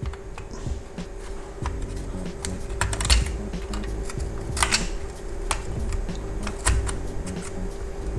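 Small plastic clicks and taps, irregular and of varied loudness, as fingers press a plastic LCD display frame down into place on an instrument cluster's circuit board, with a faint steady hum underneath.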